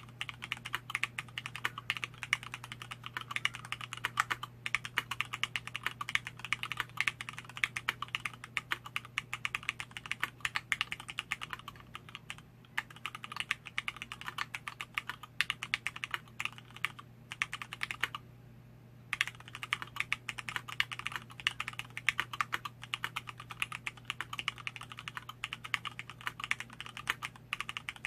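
Continuous typing on an LZ-IRON custom mechanical keyboard with Cherry MX Black linear switches on 60 g springs, an aluminium plate and PBT keycaps: a dense stream of keystroke clacks. It breaks off in a few short gaps, the longest about a second, roughly two thirds of the way through.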